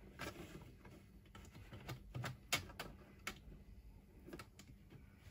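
Faint, irregular light clicks and taps of stainless steel wire being threaded through the holes in the ends of the hanging rods of a clear plastic box.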